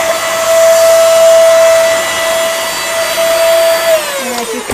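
Vax Air Classic Pet bagless upright vacuum cleaner running at full speed: a loud, steady motor whine over rushing air. About four seconds in it is switched off and the whine falls in pitch as the motor winds down.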